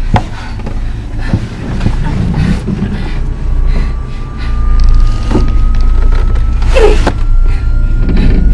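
Horror film soundtrack: a low rumbling drone under a thin high tone that slowly rises in pitch. Scattered knocks and thumps sound through it, with one loud, sharp burst about seven seconds in.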